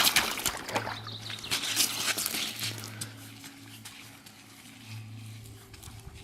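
Splashing and sloshing in a shallow forest stream, busy for the first few seconds and then easing off to the quieter trickle of running water.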